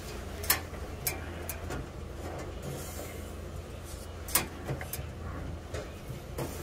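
Metal tongs and small metal baking pans clinking against an oven's metal shelf as the pans are slid in and lifted out. There are sharp clacks at irregular intervals, the loudest about half a second in and again past four seconds, over a steady low hum.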